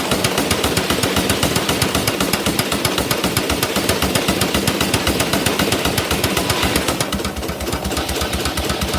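An engine running with a rapid, even beat of sharp exhaust strokes, about seven a second.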